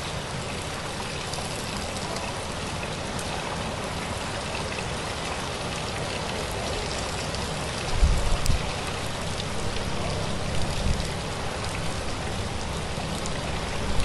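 Heavy rain falling on a car's roof and windscreen, heard from inside the car: a steady, dense hiss of drops, with deep rumbling bursts coming in from about eight seconds in.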